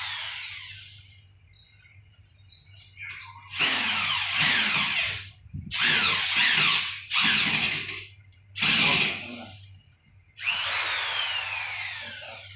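Handheld power drill drilling into a wall in repeated short runs of a second or two each, about six in all. The whine slides down in pitch during some runs.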